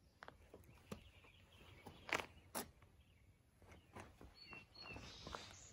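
Faint footsteps on asphalt, a few scattered steps, the loudest two about half a second apart near the middle. A bird chirps briefly near the end.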